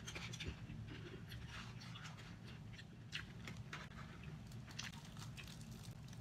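Jollibee Chickenjoy fried chicken being torn apart by hand and chewed: the crispy skin crackles in short, irregular snaps, over a low steady hum.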